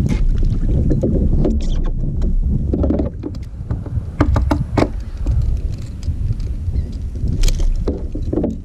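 Wind rumbling on the microphone, with several sharp splashes as a hooked redfish thrashes at the surface beside the kayak.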